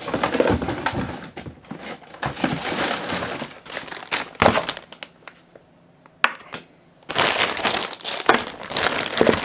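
Clear plastic zip-top bag crinkling as it is handled and opened, in rustling spells, with a sharp knock about four and a half seconds in and a quieter lull before the crinkling starts again.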